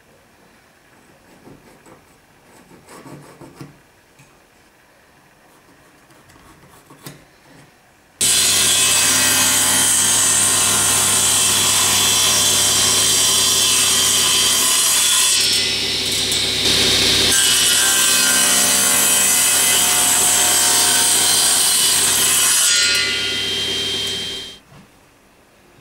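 A power saw switched on, running steadily while a block of sapele mahogany is fed through it, then switched off and winding down about 24 seconds in. Before it starts there are only faint small handling sounds.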